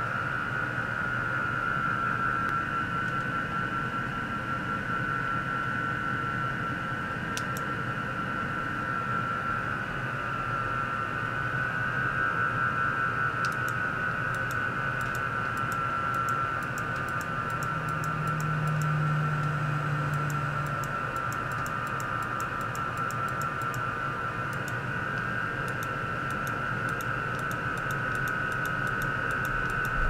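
Steady high-pitched whine over a constant hiss from an ultrasonic oscillation and measurement rig, a probe-driven container. Faint sharp clicks come in from about halfway on.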